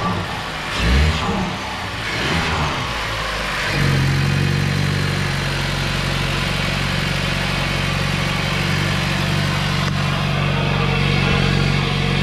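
Mazda 3 SKYACTIV-G 2.5 turbocharged four-cylinder engine, fitted with a high-flow cold air intake, being revved. There are a couple of short throttle blips in the first few seconds, then about four seconds in it is held at a steady raised engine speed.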